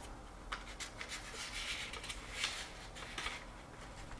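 Quiet rubbing and light scraping as flat-pack furniture parts and hardware are handled during assembly, with a few soft clicks.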